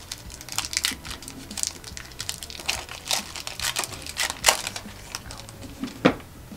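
Hands crinkling a foil Pokémon booster pack wrapper and handling the trading cards: a run of irregular crackles, with sharper snaps about four and a half and six seconds in.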